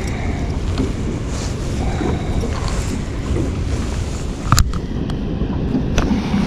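Wind buffeting the microphone in a steady low rumble, with water lapping; a sharp click about four and a half seconds in and a fainter one about a second later.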